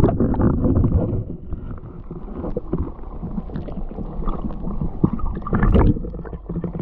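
Muffled water sounds picked up by a camera held underwater: sloshing and bubbling with irregular knocks as a hand lets go of a largemouth bass. The sound is loudest at the start and again shortly before the end.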